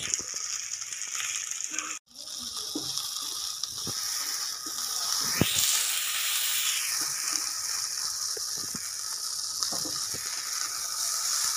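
Suran (elephant foot yam) pieces deep-frying in hot oil in a kadhai: a steady sizzling hiss that swells for a couple of seconds in the middle, with scattered knocks and scrapes of a spatula stirring them. The sound drops out for an instant about two seconds in.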